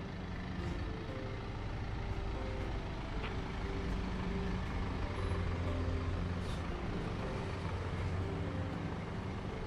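Street traffic with a heavy vehicle's engine rumbling, growing louder in the middle as it passes.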